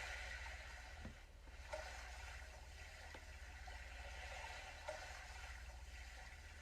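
Faint Sound of Soul soundscape, music generated from a person's heart readings: a soft wash like water or waves, with a gentle tone recurring about every three seconds over a steady low hum.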